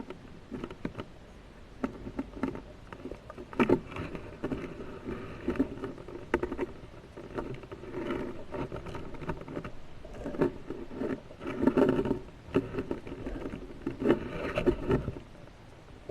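Water sloshing and rushing around a camera during a spearfishing dive, with irregular knocks and scrapes and several louder surges a few seconds apart.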